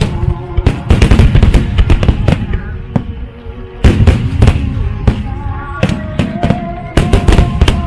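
Aerial fireworks bursting in rapid volleys: many sharp bangs and crackles, densest about a second in, about four seconds in and near the end. Music with held notes plays underneath.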